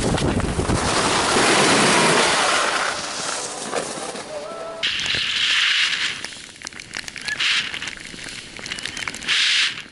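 Wind rushing over the camera's microphone mixed with the hiss of snowboards scraping and carving over packed snow during a downhill run. About halfway through the wind drops and the scraping comes in short hissing spells, three of them.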